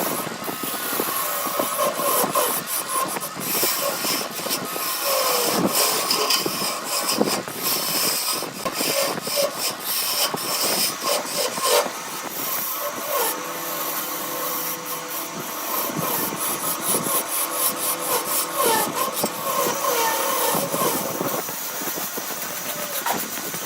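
Tool cutting and scraping a piece of wood spinning on a wood lathe: a continuous rasping scrape with frequent short clicks, and a faint steady hum under it through the middle stretch.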